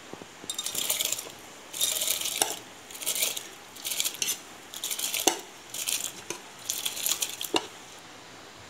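Soaked basmati rice scraped out of a metal bowl with a steel spoon into a pot of boiling water: about seven scraping strokes, each a short gritty hiss, with a sharp clink of the spoon against the bowl now and then.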